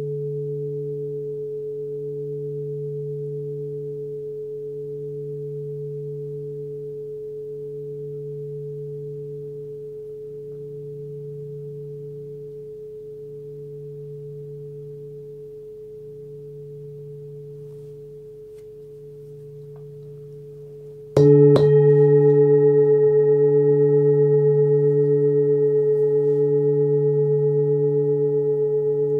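Forged Sun Moon singing bowl, 26 cm, with a low fundamental near 146 Hz (D), ringing on and slowly fading with a slow wavering pulse. About 21 seconds in it is struck again with a mallet and rings out much louder, its low tone and several higher overtones sustaining.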